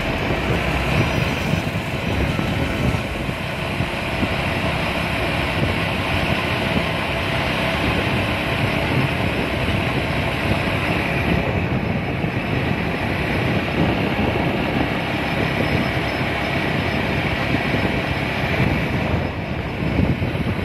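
Motorcycle riding at road speed: steady engine and road noise with wind buffeting the microphone.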